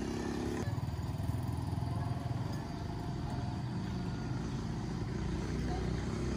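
An engine running steadily, its note shifting lower about half a second in.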